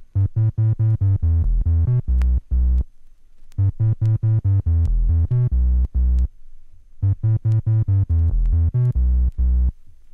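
Electronic synthesizer music: quick repeated notes over a heavy bass pulse, dropping out briefly twice.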